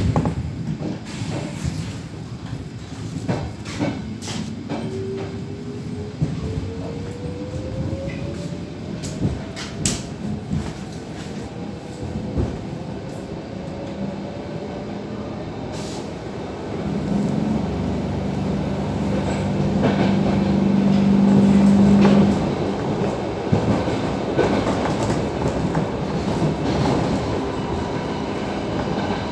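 C6 Stockholm metro train heard from inside the car as it pulls away and gathers speed: a whine rising steadily in pitch over about ten seconds, with sharp clicks and clunks of the wheels over rail joints, then steady running noise. About halfway through, a low steady hum sets in for about five seconds, the loudest sound, and cuts off suddenly.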